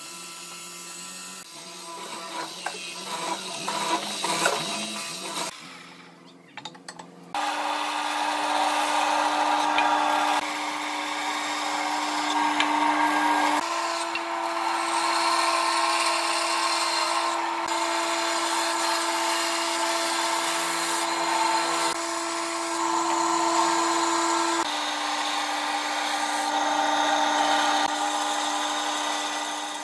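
A woodworking power tool's electric motor running at a steady whine. Its pitch steps up about halfway through and drops back later. Before it starts, a few seconds of irregular scraping and knocking from work on wood.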